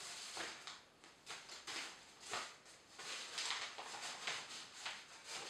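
Rustling of a soft black cloth drawstring pouch being handled and unfolded, a string of irregular scuffs and swishes.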